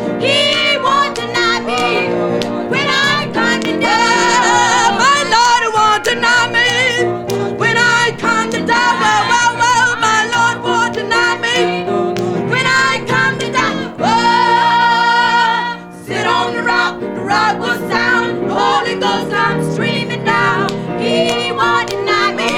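Gospel song: a singing voice over instrumental accompaniment, with one long held note about two-thirds of the way through.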